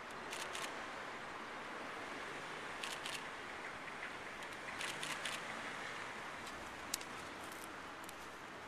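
Coloured smoke grenades burning with a steady hiss. A few short sharp clicks fall over it, the loudest about seven seconds in.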